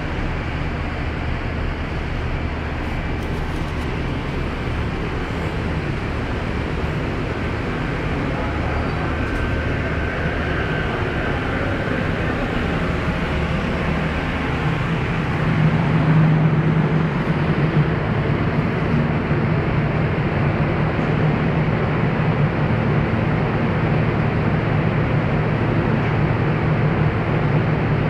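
Steady drone of an offshore supply vessel's engines and machinery heard on its own deck, with a low hum under a steady rushing noise. About halfway through the hum grows louder and higher.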